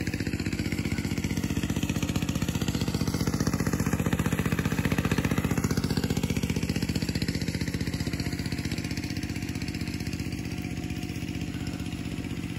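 A small engine running steadily at an even speed, a little louder in the middle.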